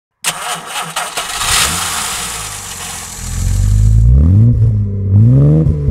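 A car engine starting with a sudden burst of noise and clicks, then revving up and down several times.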